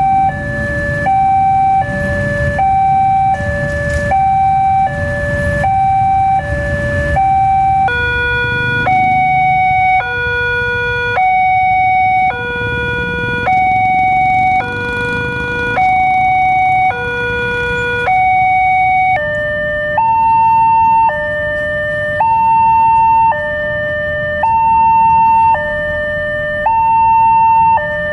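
Indonesian railway level crossing alarms sounding electronic two-tone hi-lo sirens, the warning that a train is coming. The first goes back and forth quickly, one high-low cycle a second. About eight seconds in, a slower, lower siren takes over with each tone held about a second. Near the two-thirds mark a higher-pitched pair alternates at the same slow pace.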